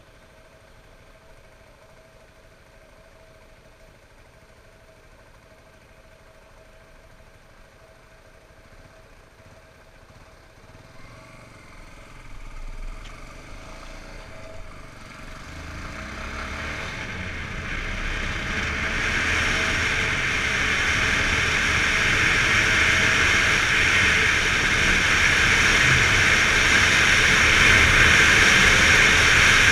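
Yamaha XTZ 250 single-cylinder motorcycle engine running quietly at first, then pulling away about ten seconds in. From there it grows steadily louder as the bike gains speed, ending in a loud rush of engine and wind noise on the microphone.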